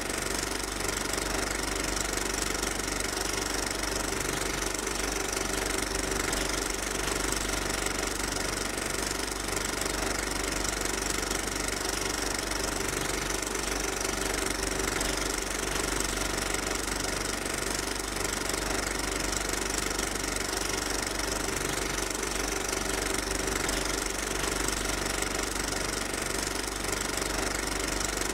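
A steady, unchanging mechanical drone with several held tones.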